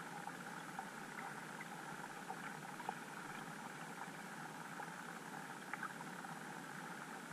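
Underwater ambience recorded by a GoPro in its waterproof housing: a steady, muffled hiss with faint scattered clicks and ticks.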